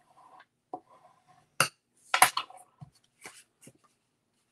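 Hands handling cardstock and craft supplies on a cutting mat: a handful of light taps and clicks, the loudest a short cluster about two seconds in, with faint paper rustle between.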